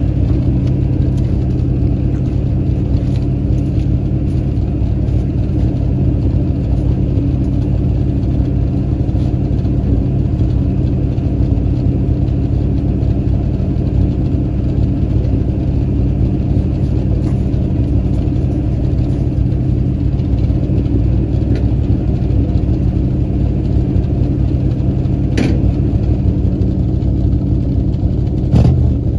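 1968 Dodge D300 tow truck's engine running steadily at a low, even pace. Two sharp clicks or knocks come near the end.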